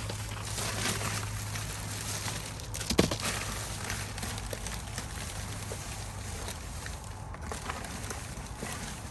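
Rummaging through discarded bags in a dumpster: plastic rustling and small clicks, with a sharper knock about three seconds in, over a steady low hum.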